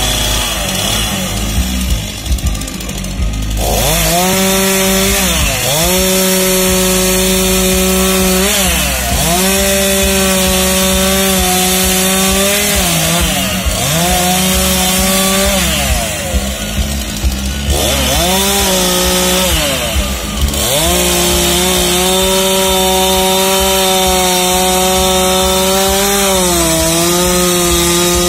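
Petrol chainsaw running at high revs while carving into a wooden block. Its engine note sags in pitch several times as the chain bites into the wood under load, then climbs back each time.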